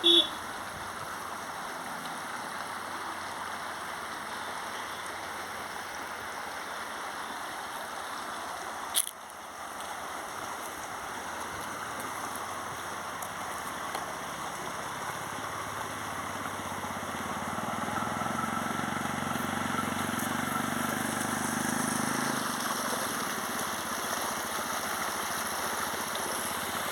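Creek water rushing steadily, with one sharp knock about a third of the way in. In the second half a motor hum rises in under the water and grows louder.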